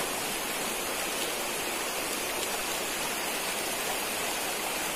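A shallow, rocky river rushing steadily.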